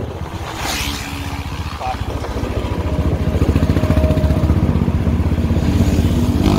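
Motorcycle engines at highway speed: the rider's own bike running steadily, with a short gust of wind on the microphone about a second in. From the middle on, another motorcycle's engine grows louder as it comes alongside, its pitch rising near the end.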